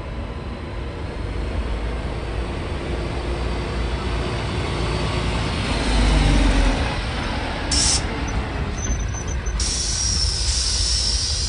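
Mitsubishi heavy truck's diesel engine rumbling as it drives slowly past, loudest about six seconds in. Air brakes hiss briefly near eight seconds, then again for longer near the end.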